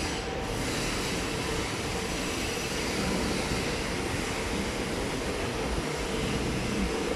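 SMRT C751B metro train standing at the platform, its equipment giving a steady hum with one held tone over a general noisy station wash.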